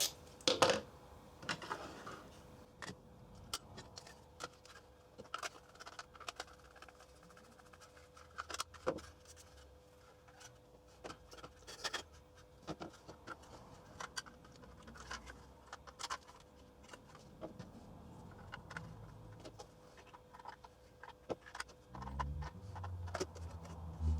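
Scattered light clicks, taps and rattles of a handheld meter's plastic case and parts being handled and fitted back together.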